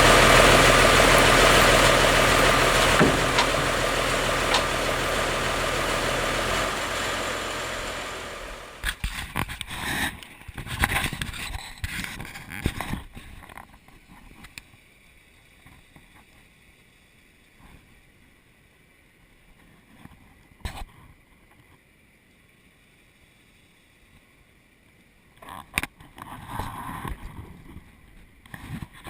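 Sawmill machinery engine running with a steady low hum, cutting off about seven seconds in and dying away. Then it is mostly quiet, broken by scattered short knocks and clunks.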